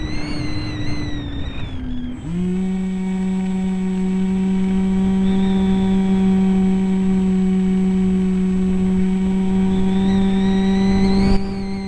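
Onboard recording of an EasyStar RC plane's 2835/16 brushless electric motor and propeller in flight, with wind noise on the microphone. The pitch shifts about two seconds in, and the motor then runs at a steady hum with a shaky high whine over it near the end, where there is a short click.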